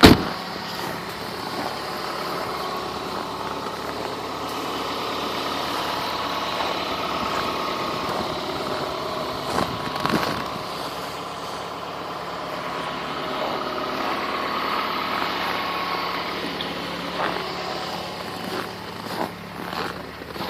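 2001 Chrysler PT Cruiser's 2.4-litre four-cylinder engine idling steadily, still cold, shortly after a −2 degree cold start. A single sharp knock sounds right at the start, and a few brief knocks come about ten seconds in.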